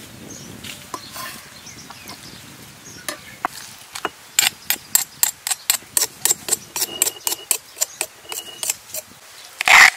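Stone pestle pounding red chilies in a stone mortar: a quick, regular run of sharp knocks, about four a second. Near the end comes a single louder, longer noise.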